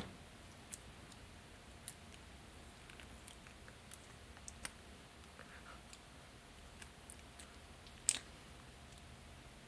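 Faint, scattered clicks and taps of a small plastic tube being worked open with hands and teeth, with one sharper click about eight seconds in.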